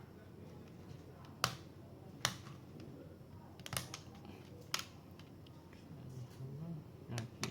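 A handful of sharp, separate clicks and taps from small laptop parts and tools being handled, spaced irregularly about a second apart.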